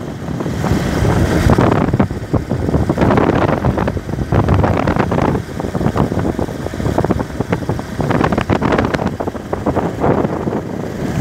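Wind buffeting the microphone on a moving motorcycle, loud and gusting, over the motorcycle's road and running noise.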